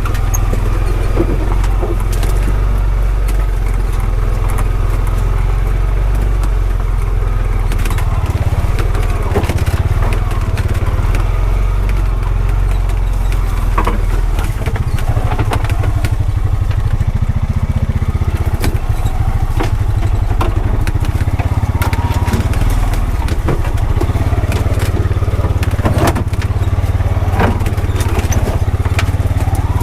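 2021 Honda Pioneer 520 side-by-side's single-cylinder engine running steadily under way, with scattered knocks and rattles throughout.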